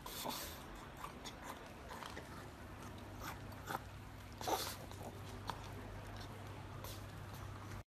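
A pug licking and eating from a small ceramic bowl: irregular wet lapping, slurping and lip-smacking, with the loudest smacks a little past the middle. The sound cuts off abruptly at the end.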